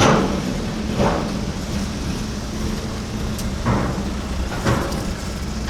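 A car driving, with a steady engine and road rumble and a few brief bumps, one about a second in and two near the end.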